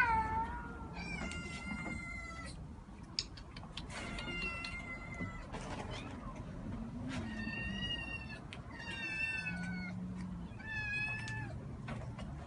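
A cat meowing over and over, about six drawn-out, high-pitched meows with short pauses between them.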